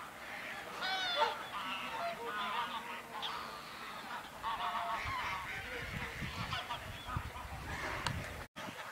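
A flock of wild birds calling, a dense chorus of short overlapping calls. A low rumble comes in about halfway through, and the sound cuts out abruptly for a moment near the end.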